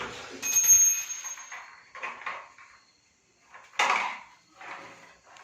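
A small metal object clinks once and rings briefly with a high, fading tone. Soft handling noises follow, then a short scrape just before the four-second mark.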